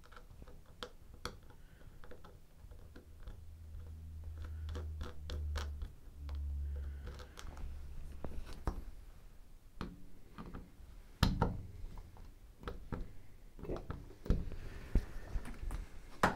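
Small clicks, taps and scrapes of a metal shower-door roller wheel being fitted back onto the door frame with a screwdriver. A low rumble runs for a few seconds in the middle.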